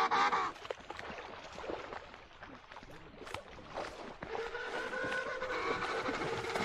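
African penguin braying: a honking call ends about half a second in, and after a quieter stretch with a few faint clicks another long, steady, horn-like bray begins about four seconds in.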